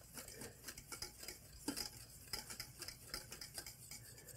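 A utensil stirring thick lemon curd in a pot, with quick, faint, irregular clicks and scrapes against the pot's sides and bottom.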